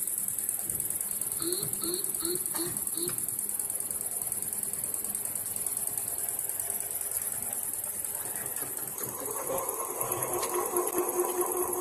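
Small electric drive motor of a CNC trainer lathe: a few short chirps early on, then a steady whirring hum from about nine seconds in, over a constant high hiss.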